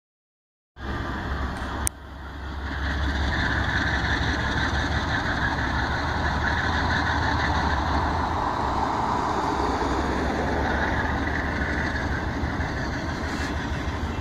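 Diesel locomotives of a departing Amtrak passenger train, a GE Genesis and a Siemens Charger, running steadily with a low engine drone as the train pulls away. The sound cuts in abruptly under a second in, with a sharp click about two seconds in.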